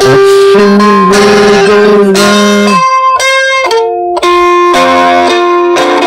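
Electric guitar instrumental: sustained melody notes over changing chords.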